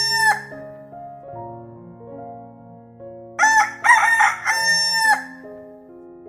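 Rooster crowing: the end of one cock-a-doodle-doo at the start, then a full crow about three and a half seconds in that ends on a long held note, over soft background music.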